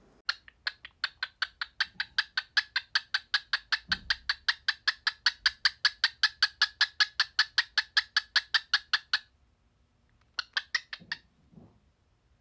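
Cockatiel calling in a fast run of short, identical chirps, about five a second for some nine seconds, then a brief second run of a few chirps.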